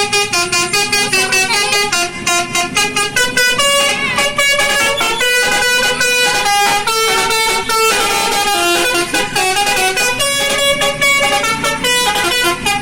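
Bus telolet horn, a multi-tone musical air horn, playing a tune. Quick short toots at changing pitches, with longer held notes in the middle.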